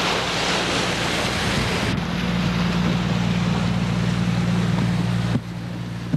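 Wake waves from a passing barge churning and slapping around a small fishing boat, with wind buffeting the microphone and a steady low engine hum underneath. The sound drops off sharply about five seconds in.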